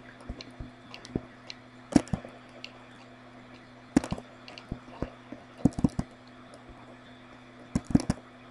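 Computer mouse clicking at irregular intervals, some clicks in quick pairs and clusters, over a steady low hum.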